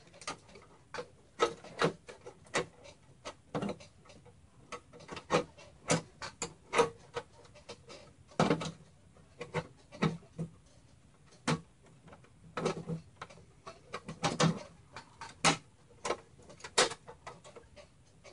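Irregular clicks, knocks and light rattles of a screwdriver and metal parts being worked as a part is taken off the inside of a mini-ITX computer case.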